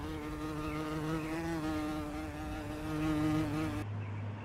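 A flying insect buzzing steadily, with a slight waver in pitch. The buzz cuts off abruptly near the end, leaving a faint low hum.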